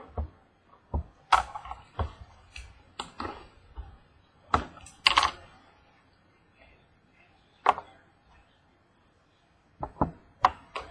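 Hands opening a trading-card box and handling the cards: a series of separate sharp taps and clicks of cardboard, with a quiet spell of a few seconds past the middle and a few more taps near the end as a stack of cards is set down on the table.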